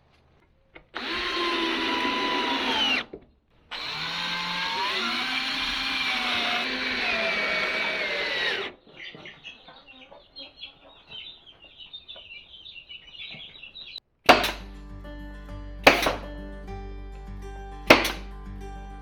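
A power drill running in two long stretches, its pitch rising and falling as the trigger speed changes. After it stops there is faint high chirping, and about three-quarters of the way in background music with a steady beat starts.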